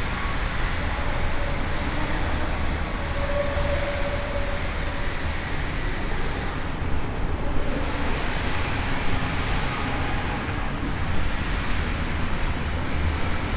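Steady low rumble of road traffic heard inside a large pedestrian underpass, without a break or change.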